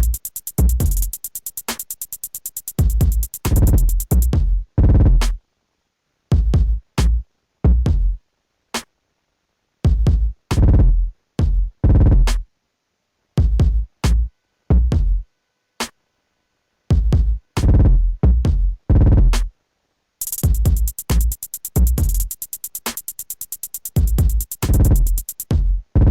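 Background music: a drum-machine beat with deep bass kicks and rapid hi-hat ticks, dropping out to dead silence several times for a second or two before coming back.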